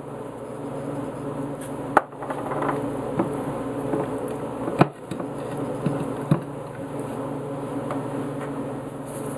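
A steady low buzzing hum, with several sharp knocks of seasoning shakers set down on a countertop and fillets being handled; the two loudest knocks come about two and five seconds in.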